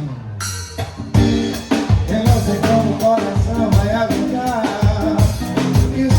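Live band playing: drum kit keeping a steady beat under pitched instruments and a singing voice. A short break in the beat lets a low note ring, then the full band comes back in about a second in.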